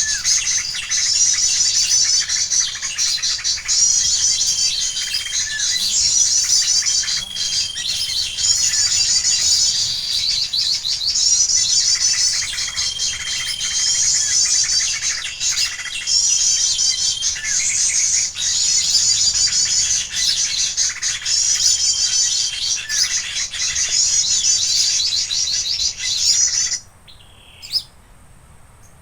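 Songbird chirping in fast, high trills, the phrases repeating at an even pace about every two seconds, then cutting off suddenly near the end.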